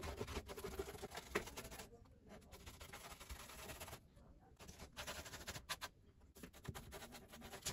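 Faint scratching and dabbing of a paintbrush working thinned filler into the joints of a polystyrene model, in irregular strokes with short pauses and a few light clicks.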